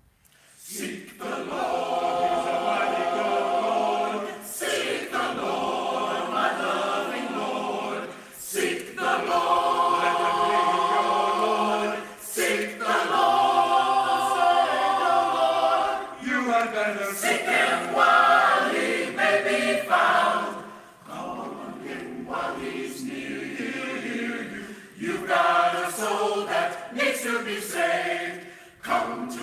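A choir singing in several parts, starting about half a second in, with phrases of a few seconds each.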